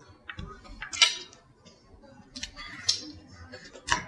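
Close-miked eating sounds: wet mouth clicks and crisp crunches of cauliflower-crust pizza being chewed, coming as a string of short, irregular snaps, the loudest about a second in and near the end.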